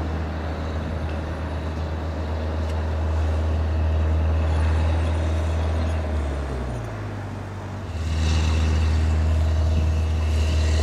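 Duramax 6.6-litre turbodiesel V8 of a 2015 Chevrolet Silverado 2500HD idling steadily after a remote start. Its level dips briefly about six seconds in and comes back up about two seconds later.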